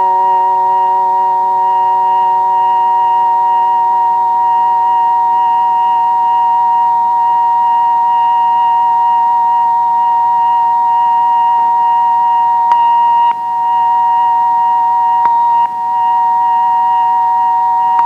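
A sustained droning chord of several steady held tones, the lowest note fading out about halfway through. Two clicks in the second half, each followed by a brief dip in level.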